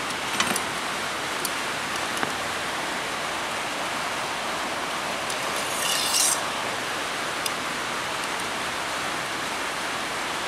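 Steady rain on a tin roof, an even hiss throughout. A few faint ticks and a brief high scrape about six seconds in, likely from handling the metal brake line.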